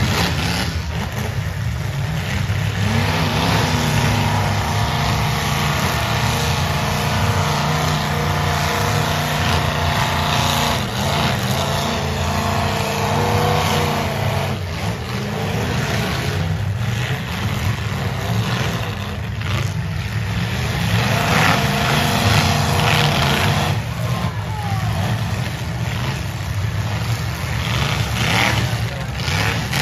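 Several demolition derby cars' engines running loud and continuously, revving up and down at times.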